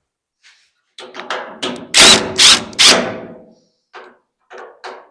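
Sharp knocks and clunks of hand work on a car door's handle hardware: a few light taps, then three loud clunks about two seconds in, then lighter taps near the end.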